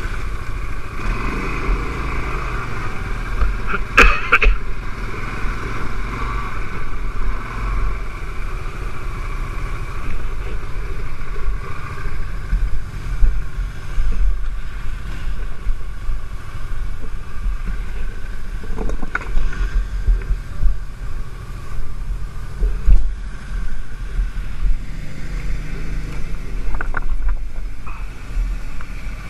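CFMoto X5 ATV engine running over rough, rocky ground, with a heavy uneven rumble and a sharp knock about four seconds in and another near the middle.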